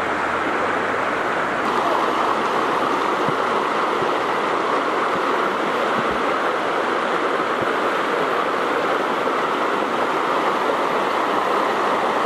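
River water rushing steadily, an even hiss of flowing water.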